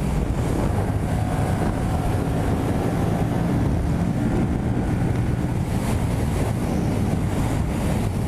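Wind rushing hard over the microphone on a Yamaha MT-07 at highway speed, with the bike's parallel-twin engine running under it.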